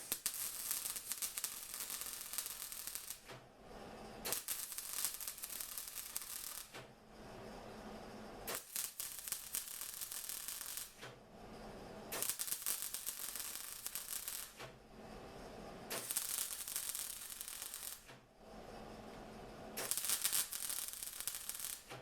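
Welder crackling as a patch is welded onto a steel car chassis, in six runs of about two to three seconds each with short pauses between.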